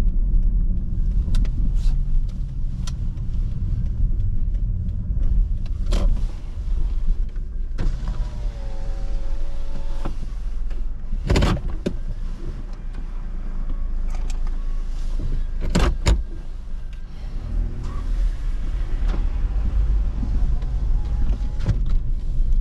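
Car cabin: the steady low rumble of a car's engine and tyres as it slows to a stop and moves off again at low speed, with a few sharp knocks and a brief whining tone about eight seconds in.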